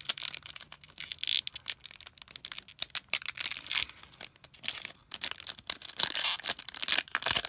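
Foil Pokémon TCG booster pack wrapper being torn open and crinkled in the hands: a dense run of sharp crackles and rustles.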